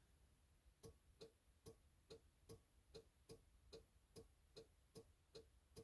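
A relay in the 1983 Porsche 944's electrical system clicking faintly and evenly, about two and a half clicks a second, starting about a second in. The clicking comes when a wire is touched that sets off a parasitic battery draw of about 213 milliamps.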